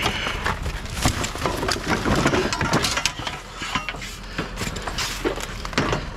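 Scrap being handled and moved: a run of irregular clanks, knocks and rattles.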